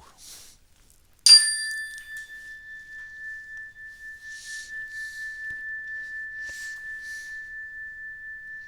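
A meditation bell struck once, about a second in, ringing with a single high, steady tone that wavers gently as it slowly fades.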